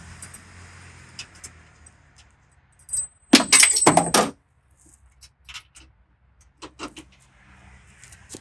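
Metal hand tools clinking and clattering against each other for about a second, starting about three seconds in, followed by a few scattered lighter clicks.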